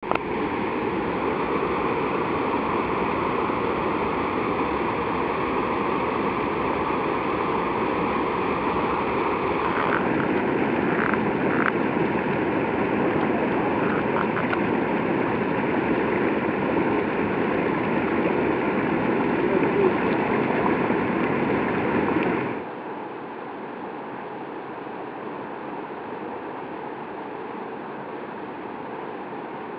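Skokomish River rapids and small cascades: a steady rush of white water over rocks. About three-quarters of the way through it drops suddenly to a quieter, thinner rush.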